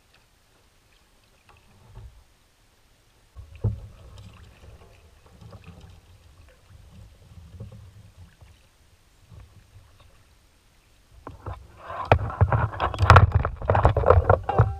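Kayak paddling: the paddle dipping and water splashing and dripping off the blade, with a sharp knock a few seconds in. The splashing is loudest over the last few seconds.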